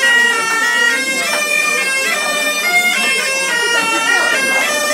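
Two bagpipes with drones playing a folk dance tune together with small end-blown wooden flutes, steady and loud, the melody moving note to note over a held drone.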